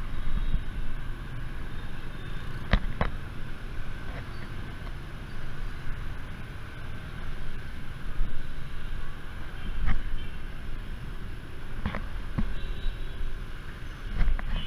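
Riding a motor scooter through dense scooter traffic: a steady, uneven engine and road rumble, with a few short sharp clicks or knocks scattered through it.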